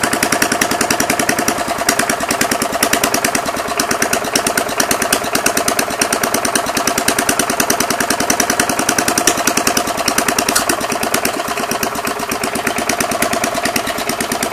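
Single-cylinder Briggs & Stratton 3.5 hp lawnmower engine running with no exhaust fitted: a loud, rapid, steady stream of firing pops. It is not running well, which the owner thinks calls for carburettor tuning.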